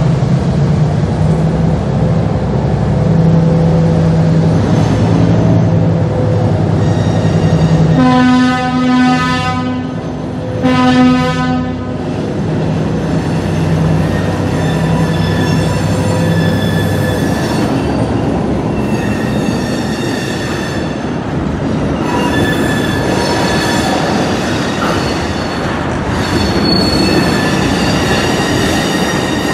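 EMD NW2 switcher's V12 567 diesel engine running as it approaches and passes, with two long horn blasts about eight seconds in. Then tank cars roll by with high-pitched wheel squealing.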